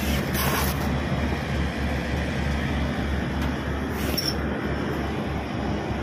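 LG package air-conditioning unit running with its compressors and condenser fans on: a steady rumble with a low hum. Two brief hissy sounds come through, one just after the start and one about four seconds in.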